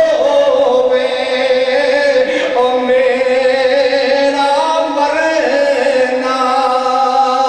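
A man's voice chanting melodically in long, held notes that step up and down in pitch.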